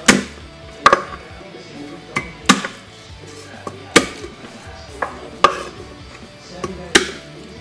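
Garlic cloves being crushed under the flat of a kitchen knife on a wooden cutting board: a palm slaps down on the blade, giving six sharp whacks about a second and a half apart.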